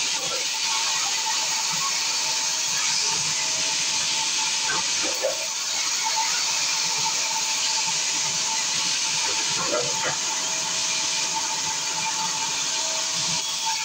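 Large vertical band saw ripping a thick timber plank lengthwise. The blade makes a steady hiss through the wood over a thin, even hum, with a couple of short rising sounds about five and ten seconds in.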